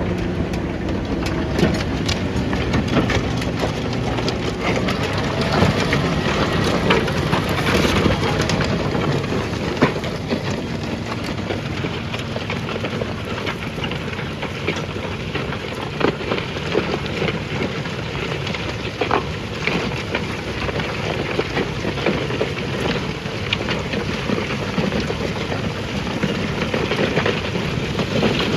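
John Deere 6250 tractor engine running under load while pulling a six-furrow plough. Its hum is clearest in the first few seconds, under a dense crackling hiss full of small clicks.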